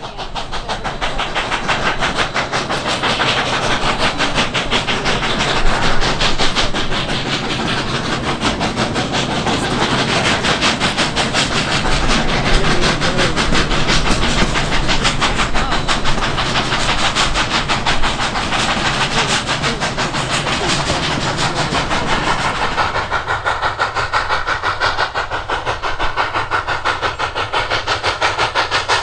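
Double-headed narrow-gauge Rio Grande Mikado steam locomotives working hard up the grade, their exhaust chuffing in a fast, even rhythm with hiss of steam. The sound shifts abruptly about three-quarters of the way through, turning less hissy.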